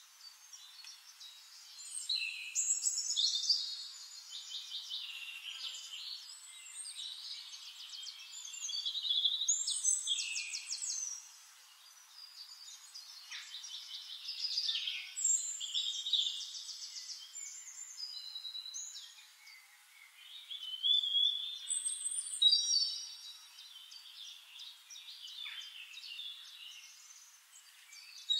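A chorus of forest songbirds, several singing at once in overlapping trills, chirps and whistles. The song swells and eases every few seconds.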